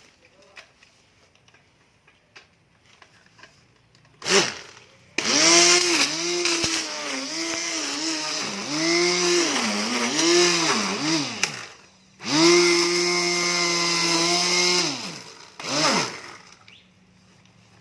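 Electric grass trimmer motor running in spurts. First a short burst, then about six seconds of whine whose pitch repeatedly dips and recovers. After a brief stop it runs about three seconds at a steady pitch and winds down, with one more short burst near the end.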